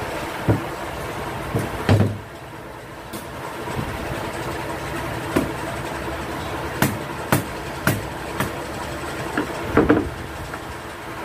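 Mallet knocking on an aluminium window frame as its corner joint is tapped together: about ten sharp knocks at irregular intervals, a few coming in quick pairs. A steady background rumble runs underneath.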